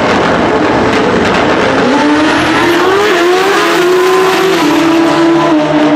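Two Pro Xtreme drag-racing motorcycles launching and running flat out down the strip side by side. Their engine pitch rises in steps as they shift up through the gears.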